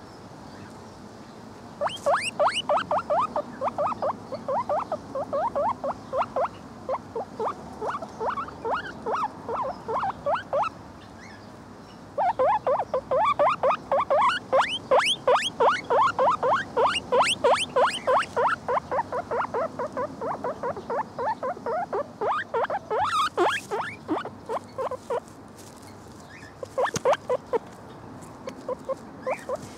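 Agouti guinea pig squeaking in rapid series of short, rising squeaks, about three or four a second, in three bouts with short pauses between them.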